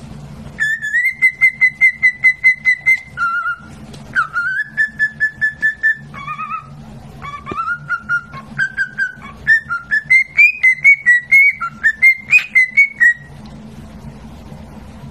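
A parrot whistling a tune in quick, short repeated notes, about five a second, first held on one pitch and later stepping up and down, over a faint steady low hum.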